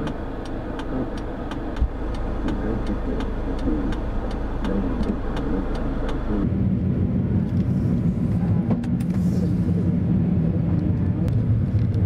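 Car interior: the engine idles while the indicator flasher ticks about three times a second. About six and a half seconds in, the ticking stops and the car pulls away, with a low engine and road rumble.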